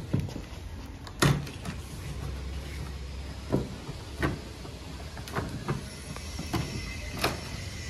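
Packing tape on a cardboard box being cut open with a blade, with scattered short knocks, rips and scrapes of the cardboard, the loudest about a second in, over a low steady background rumble.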